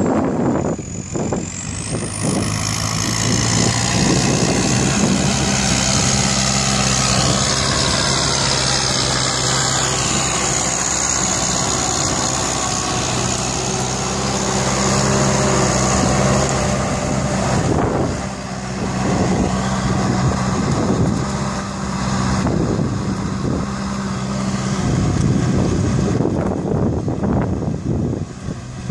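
Kubota tractor's diesel engine running steadily under load while pulling a disc plough through dry soil.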